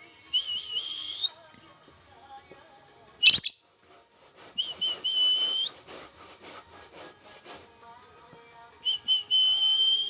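Lovebird singing: short high whistled phrases, each starting with a few stuttered notes and then held steady, repeat three times. A loud sharp squeak comes about three seconds in, and a rapid chattering run follows between the phrases.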